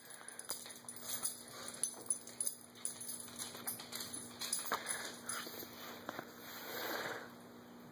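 Small Shih Tzu dogs moving about on a hardwood floor: scattered light clicks of claws on the wood, with faint jingling from collar tags.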